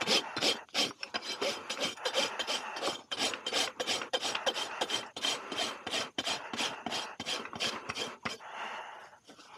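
Steel farrier's hoof rasp scraping across a horse's hoof in quick back-and-forth strokes, about three a second, as the hoof is rasped down and shaped. The strokes stop shortly before the end.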